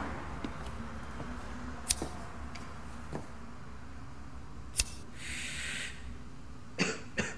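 A pocket lighter is struck with one sharp click, followed by about a second of soft hiss. A few faint clicks and taps come before it and two more near the end.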